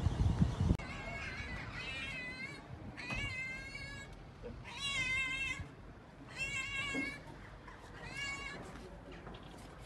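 A brief low rumble in the first second, then a domestic cat meowing about five times, each meow under a second, roughly one every one and a half seconds. The cat is asking to be fed.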